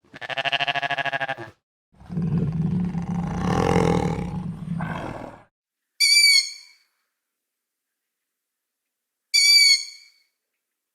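A string of separate animal sound effects: a short pulsing call, then a low roar lasting about three and a half seconds, then two short high-pitched calls about three seconds apart.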